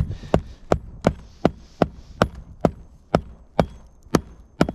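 Steady hammering on an asphalt-shingle roof: about a dozen sharp knocks, two to three a second, evenly spaced and even in strength.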